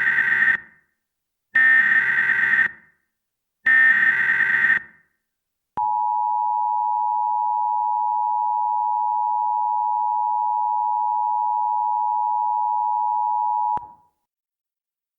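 Emergency Alert System SAME header: three short bursts of buzzy data tones about two seconds apart, the first already under way. They are followed by the EAS two-tone attention signal, a steady dual tone held about eight seconds that cuts off suddenly. The header carries the alert's coded origin, event and area, and the attention signal announces that a spoken emergency message follows.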